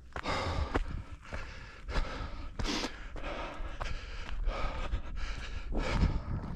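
A runner panting hard in a steady rhythm of breaths while running, with footfalls in between.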